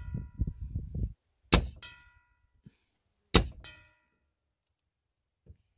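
Two shots from a .22 Crosman Crusher nitro-piston break-barrel air rifle, the first about a second and a half in and the second nearly two seconds later. Each is a sharp crack followed a fraction of a second later by a brief metallic ring.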